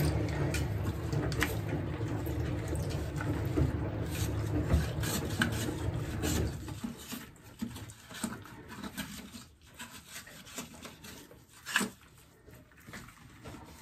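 A cloth and gloved fingers rub and wipe the plastic of a Xiaomi humidifier's water-tank part, with small plastic clicks and one sharper knock near the end. A steady low hum underneath stops about halfway through.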